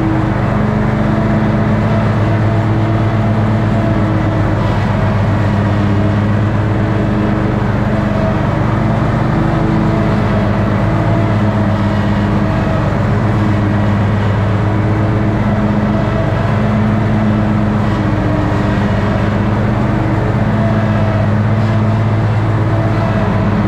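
Toro riding mower's engine running steadily while mowing, its pitch wavering only slightly.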